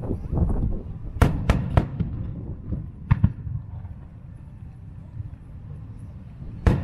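Aerial firework shells bursting. Three sharp bangs come in quick succession about a second in, two smaller cracks around three seconds, and another loud bang near the end, over a continuous low rumble.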